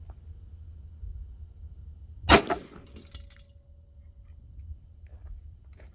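A single 9mm pistol shot about two seconds in, firing a 124-grain full-metal-jacket round, followed by a faint ringing tone for about two seconds.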